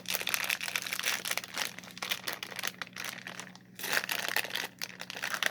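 A gummy candy wrapper crinkling and rustling as it is handled and torn open, with dense crackles throughout.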